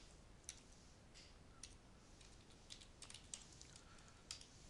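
Computer keyboard typing, faint: irregular, scattered keystrokes.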